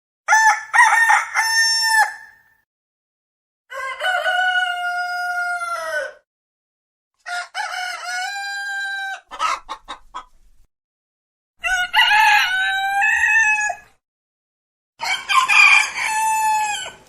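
Roosters crowing: five separate cock-a-doodle-doo crows, each about two seconds long and ending on a long held note, with silent gaps between them. The crows differ in pitch from one to the next, and a few short calls follow the third.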